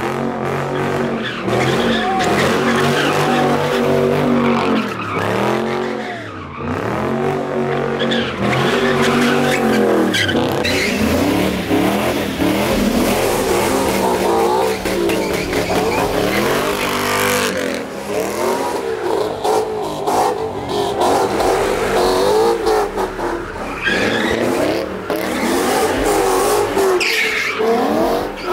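Cars doing donuts: engines revving up and falling back over and over, with tyres squealing and skidding on the asphalt.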